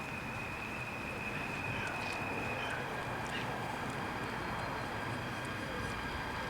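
Steady outdoor background noise at a railway level crossing, with a faint steady whine that changes pitch about three seconds in and a few faint high chirps.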